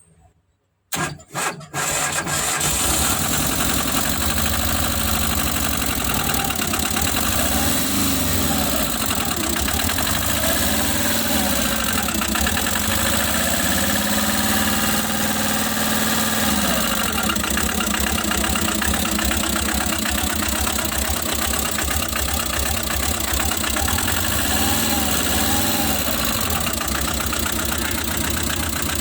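Tata Magic engine starting about a second in after a couple of brief cranks, then running steadily. The engine has an overheating and knocking fault.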